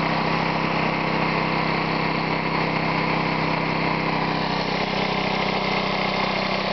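Single-cylinder Briggs & Stratton 3.5 hp lawnmower engine running steadily under load, belt-driving a homemade air compressor that is pumping its tank past 100 psi; the engine's governor holds it against the rising pressure.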